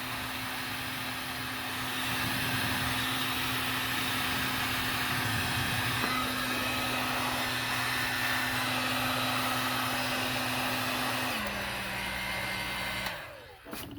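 Electric heat gun running steadily, its fan blowing hot air to shrink the heat-shrink sleeves of crimp-on butt connectors. Its pitch drops slightly about eleven seconds in, and it switches off about a second later.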